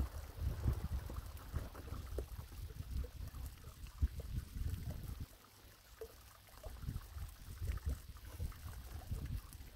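Wind gusting over the microphone: an uneven, buffeting low rumble that rises and falls in gusts.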